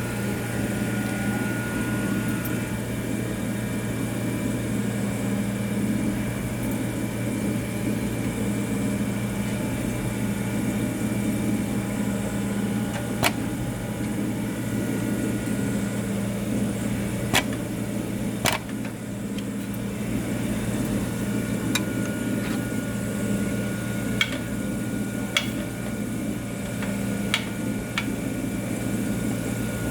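Juki LK1920HA computerised bartacking machine humming steadily while powered on, with scattered single clicks and knocks from the clamp and workpiece being handled.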